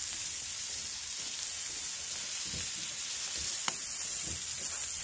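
Beef burger patties sizzling steadily on a griddle insert over a charcoal kettle grill, with one light click a little past halfway.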